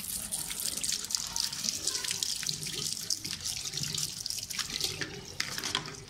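Water running from a tap and splashing over a plastic dishwasher filter being rinsed under it in a sink, with a few short sharp clicks near the end.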